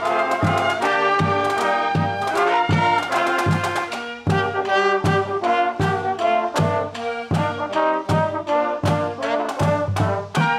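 High school band of trumpets, trombones and saxophones playing a lively tune together over a steady bass drum beat.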